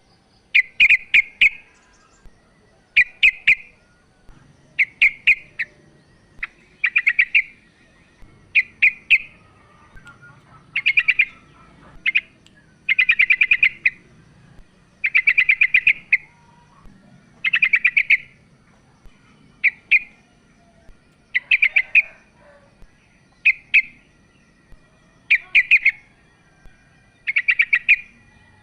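Female yellow-vented bulbul calling over and over, about every two seconds: each call is a few sharp clicks running into a quick chattering burst of notes lasting under a second. It is a bulbul-keeper's lure call for prompting a male to sing.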